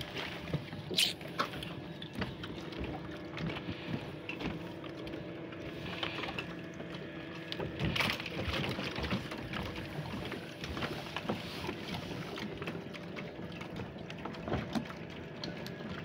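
Water lapping and clicking around moored boats, with a steady low hum underneath and two sharper knocks, about a second in and about halfway through.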